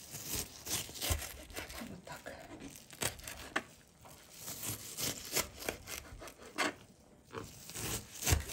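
Knife chopping onion into small pieces against a cutting board: an uneven series of crisp cuts, a few per second.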